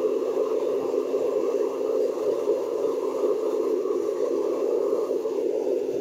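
Small crucible melting furnace running hot, a steady, even rushing noise of its fire with a faint low hum underneath.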